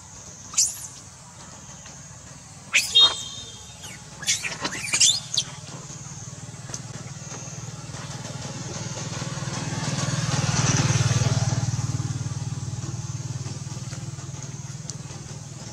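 Several short, high-pitched monkey squeals in the first five seconds. Then a motor vehicle passes, its engine hum swelling to a peak about eleven seconds in and fading away.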